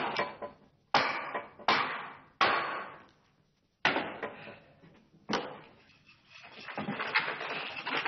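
Six sharp blows of a hatchet striking wood, spaced about a second apart, each dying away quickly. A rougher continuous scratchy noise follows near the end.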